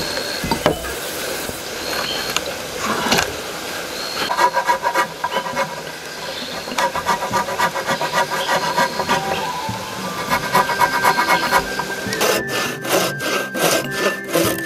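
A steel chisel scraping and paring wood out of a mortise in a thick wooden plank, in several spells of rapid rasping strokes. About 12 seconds in, a wooden frame saw starts cutting a board in strokes about three a second.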